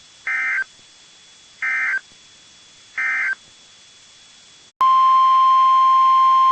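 NOAA Weather Radio Emergency Alert System signal: three short bursts of warbling SAME header data tones, about 1.3 seconds apart, then near the end the steady single-pitch 1050 Hz warning alarm tone starts, announcing a new warning.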